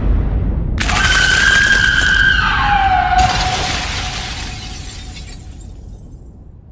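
Film sound effects of the Angel Ramiel's crystalline shell breaking apart: over a low rumble, a sudden shattering burst about a second in carries a high shrieking cry that slides down in pitch, and a second shattering burst around three seconds in fades slowly away.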